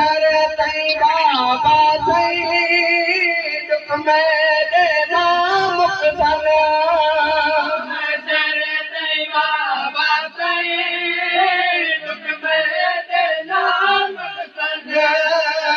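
A male voice chanting a noha (Shia mourning lament) into a microphone, with no instruments: long held, wavering notes that bend up and down, with a few short breaths between phrases.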